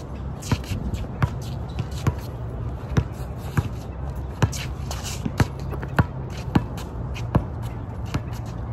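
A basketball being dribbled on a hard court, a dozen or so sharp bounces about every three-quarters of a second, with shuffling between the bounces and a steady low rumble underneath.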